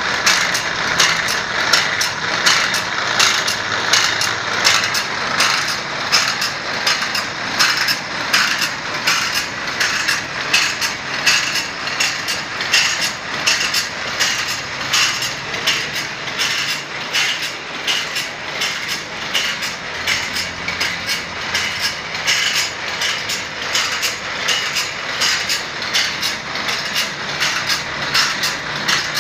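Automatic bandsaw-blade sharpening machine running, its grinding wheel dipping into the blade's teeth one after another. This makes a rhythmic grinding of about two to three strokes a second, with the mechanical clatter of the feed advancing the blade tooth by tooth.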